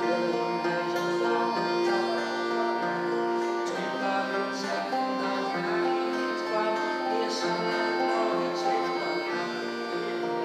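Live acoustic folk music: an accordion holding sustained chords and melody notes over two acoustic guitars.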